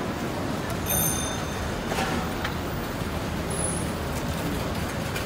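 Busy street ambience: a steady rumble of traffic, with a brief high-pitched ring about a second in.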